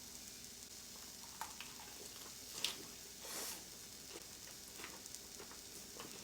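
Meat sizzling on a portable tabletop grill pan, a steady soft hiss. A few light clicks break in, the sharpest about two and a half seconds in, with a brief swell of noise just after.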